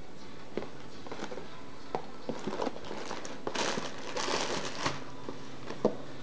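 Plastic packaging crinkling and rustling as it is handled, with scattered light taps. The crinkling is densest from about three and a half to five seconds in.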